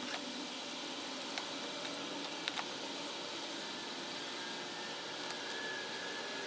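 Toothbrush scrubbing a small old metal clamp wet with liquid: a steady brushing hiss with a few sharp metallic clicks.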